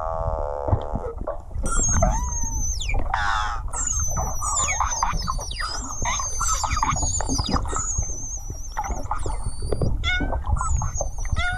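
Pilot whales vocalising: many high whistles that swoop up and down, mixed with quick trains of clicks, over a steady low rumble.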